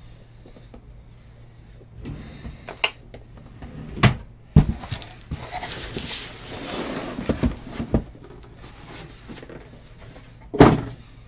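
Cardboard boxes of trading cards being handled and set down on a table: a few knocks and thumps, with rustling in the middle and the loudest thump near the end.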